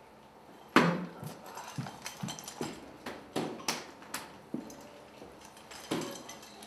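A soft-tip dart strikes an electronic dartboard with a sharp knock about a second in, followed by a string of irregular clicks and knocks as the darts are pulled from the board.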